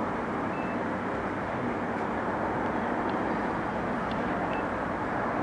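Steady, even background hum of a train factory hall, with a few faint short high pips here and there.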